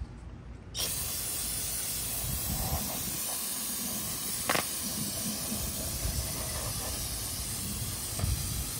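Aerosol can of carburetor cleaner spraying in one long, continuous hiss that starts suddenly about a second in, washing carbon deposits out of a carburetor.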